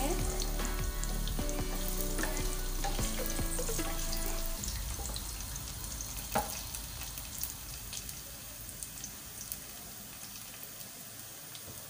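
Chopped onions frying in oil in a wok, being browned: a steady sizzle with small scattered crackles and pops, stirred with a wooden spatula, and a single knock about six seconds in. Background music with held notes plays over the sizzle for the first four seconds or so, then stops.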